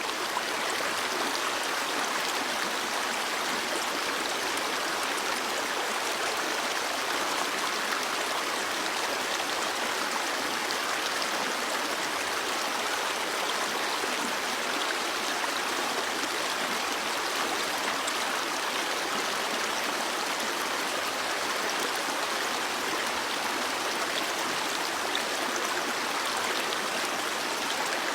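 Stream water flowing steadily over rocks, an even, continuous rush and babble.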